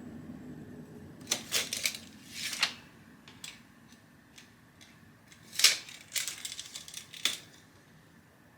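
A series of sharp clicks and taps in two clusters, with a short scrape between them, from metal hinge plates and hardware being handled and positioned on a cabinet door.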